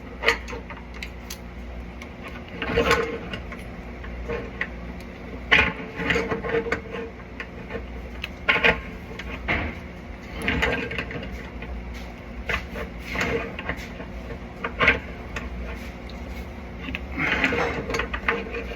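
Irregular knocks, clanks and scrapes of hands and tools working on a water heater's plumbing fittings, over a steady low hum.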